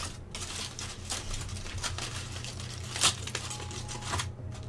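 Aluminium foil crinkling and rustling in bursts as hands pull it open around food. It stops shortly before the end, as a faint electronic tune begins.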